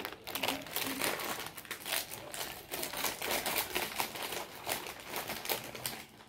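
Plastic Red Hots candy bag crinkling as it is handled: a rapid, continuous run of crackles that dies away just before the end.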